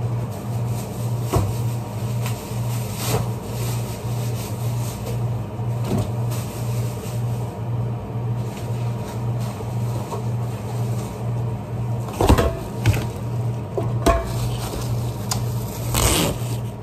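Steady low hum of restaurant kitchen machinery, pulsing evenly a few times a second, with scattered knocks and clatter of items being handled on a steel prep counter, the loudest about twelve and sixteen seconds in.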